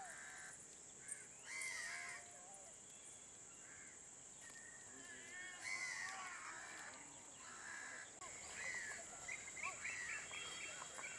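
Crows cawing several times, in short separate calls, over a faint steady high-pitched whine.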